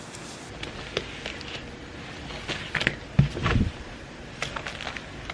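Paper rustling and light clicks and knocks as a book's pages are handled and a pen is picked up on a desk, with one louder dull thump about three seconds in.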